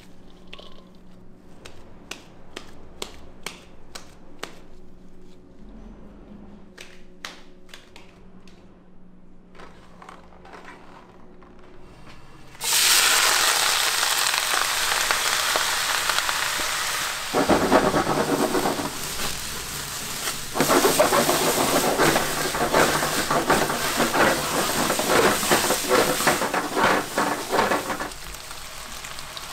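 Light kitchen clicks and knocks, then, a little under halfway through, a sudden loud sizzle as food starts frying on a hot cooking surface. The crackling hiss swells twice and keeps going.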